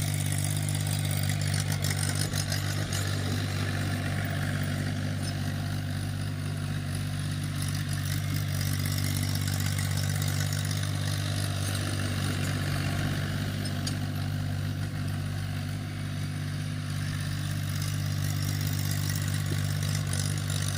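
Tractor diesel engine running steadily as a low drone while the tractor tills a field.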